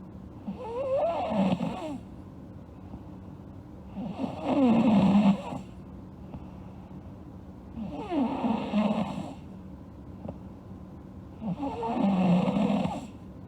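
A sleeping girl snoring: four snores about four seconds apart, each lasting a second or so.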